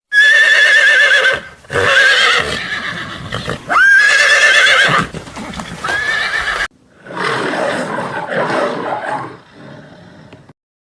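Horse whinnying: four loud, quavering high-pitched neighs in the first seven seconds, two of them opening with a rising glide. After a sudden break comes a quieter, rougher stretch of noise.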